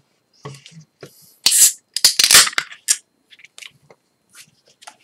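Aluminium beer can opened by its pull tab: a cluster of sharp cracks and hissing bursts, most of them between about one and a half and three seconds in, followed by a few faint ticks of handling.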